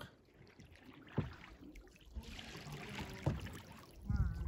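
Canoe paddle strokes in calm water: two soft dips about two seconds apart, with a light wash of water along the hull.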